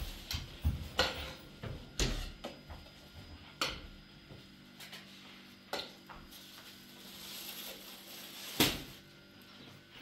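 Scattered clinks and knocks of hard objects being handled, at irregular intervals, with the sharpest knock near the end.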